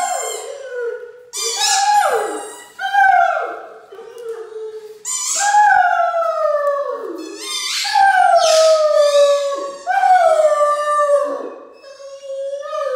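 A Great Dane howling in a run of long calls that slide down in pitch, a new one starting every one to three seconds. A plush squeaky toy squeals along in time with the howls.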